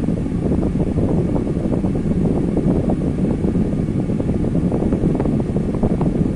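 Electric fan running steadily, its airflow buffeting the microphone into a low, even rush of wind noise.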